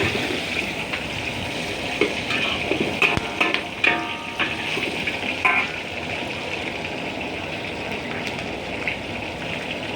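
Oil sizzling steadily in a pan as aromatics and bruised lemongrass fry for a curry base, with a few clicks and scrapes of a spatula against the pan in the first half.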